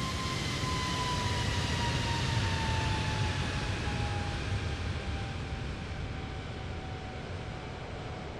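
Jet airliner taking off at close range: engine roar and hiss with a whining tone that slides steadily down in pitch as the aircraft passes and moves away. It is loudest about two to three seconds in, then fades slowly.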